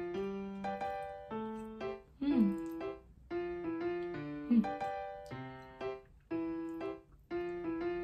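Background music on a piano-like keyboard: chords struck one after another, each starting sharply and fading before the next, about one or two a second.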